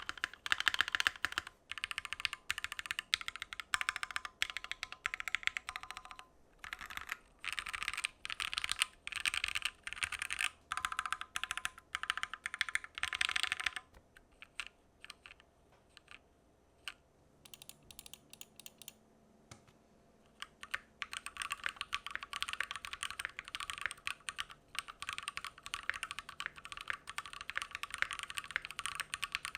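Typing on a Keychron Q1 mechanical keyboard with a gasket-mounted aluminium plate: steady clacking keystrokes, thinning out to slower, separate key presses about halfway through, then fast continuous typing again for the last third.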